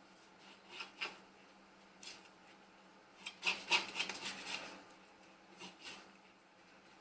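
Hand-work in food preparation: short rubbing and scraping sounds, twice in the first second, once about two seconds in, then a busier stretch of scraping from about three and a half to four and a half seconds in, and two more near the end. A faint steady hum runs underneath.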